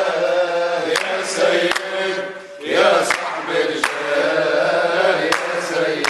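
A group of men chanting together in Arabic, a devotional chant in praise of the Prophet Muhammad, with sharp percussive beats about once a second.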